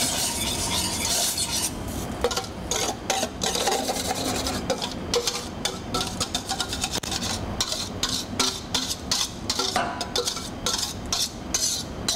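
A utensil scraping and clinking against a stainless-steel bowl as thick, chunky marinade is scraped out into a saucepan of reduced red wine. The scrapes and knocks are irregular, coming thick and fast from about two seconds in.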